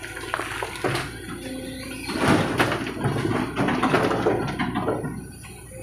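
Earth and rocks pouring from an excavator bucket into a tractor's metal trailer: a long rattling rush of falling rubble starting about two seconds in, with a few knocks before it.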